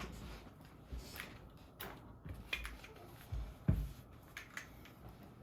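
Scattered, irregular clicks and a few soft low thumps from a custom mechanical keyboard being handled, not a steady run of typing.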